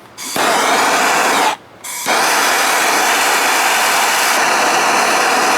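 Aerosol can of PB Blaster penetrating oil spraying into a drilled-out broken bolt to loosen it: a short burst of hiss, a brief pause, then a longer steady spray from about two seconds in.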